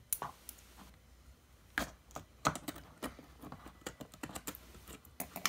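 Small scissors clicking and snipping as they pierce and cut the foil seal on a slime jar, a string of irregular light clicks and taps.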